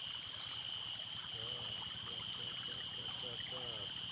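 Steady high-pitched insect drone over running stream water, with a few short warbling calls about a second and a half in and again near the end.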